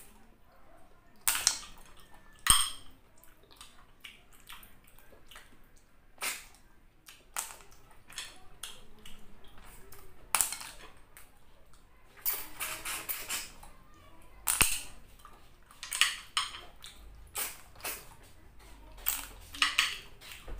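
Repeated sucking slurps as snail meat in coconut-milk sauce is sucked out of the shells by mouth, coming in short irregular bursts every second or two. A couple of sharp clicks are heard among them.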